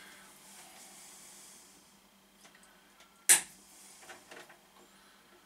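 A single sharp snip of hand wire cutters or strippers closing on a fan wire about three seconds in, with a few faint handling clicks around it; otherwise quiet room tone.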